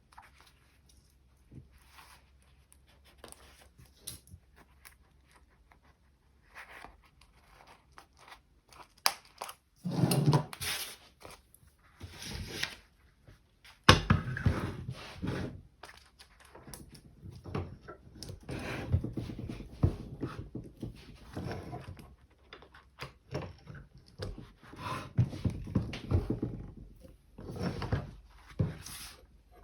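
Double-cap rivets being fitted through a fabric bag panel: small clicks and rustles as the rivet parts are handled and pushed through, then a sharp knock about halfway through followed by repeated knocks and taps as the rivets are set.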